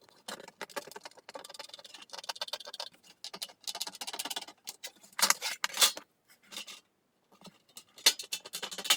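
Small metal parts and tools being handled on a workbench: rapid irregular clicks and light rattles, with louder clattering bursts about five seconds in and again near the end.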